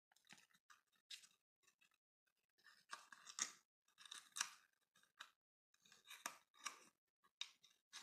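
Faint, irregular clicking and rustling of small plastic-and-cardboard product packaging being handled, with busier stretches in the middle and toward the end.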